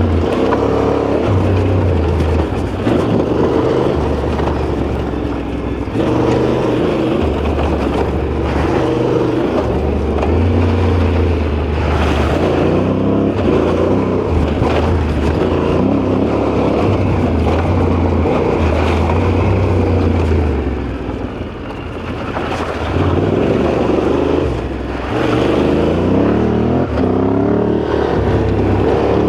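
Yamaha Ténéré 700's 689 cc parallel-twin engine running under changing throttle while riding, revs rising and falling. It eases off briefly twice past the middle, then pulls again.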